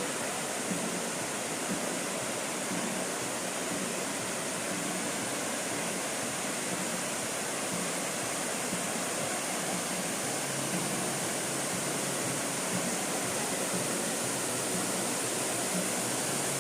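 Steady rushing of a waterfall: an even wash of water noise with no let-up. A faint low hum joins about ten seconds in.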